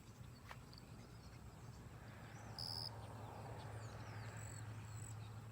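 Faint outdoor ambience: scattered bird chirps over a low steady hum, with one brief high-pitched squeak about two and a half seconds in and a run of short high peeps near the end.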